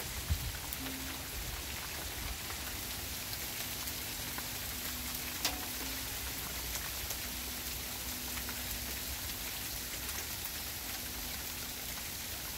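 Small hail falling steadily on the ground, wooden garden boards and plants: a dense, even hiss of tiny ticks. There is a soft thump just after the start and a single sharper tick about five and a half seconds in.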